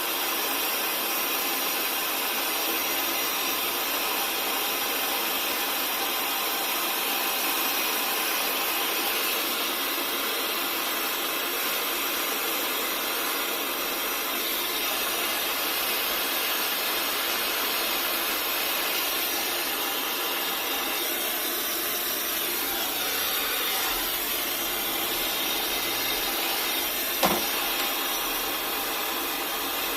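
Gas brazing torch flame hissing steadily while refrigerator compressor pipework is brazed, with one sharp click near the end.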